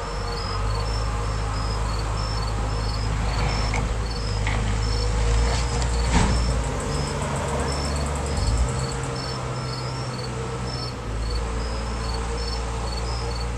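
Crickets chirping in an even, steady rhythm over the low steady drone of the crane's engine, with a brief sharp knock about six seconds in.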